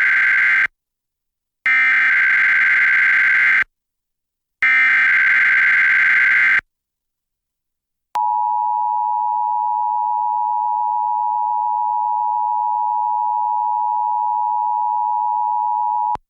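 Emergency Alert System header for a Required Monthly Test. Three warbling bursts of SAME digital data, each about two seconds long with a second of silence between, the first already under way. After a short gap comes the steady two-tone EAS attention signal (853 and 960 Hz), held for about eight seconds and cut off abruptly.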